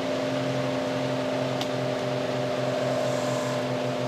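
Induction motor and multi-coil generator rotor running with a steady hum and whine, under a low throb that pulses faster as it goes on. A faint tick about one and a half seconds in.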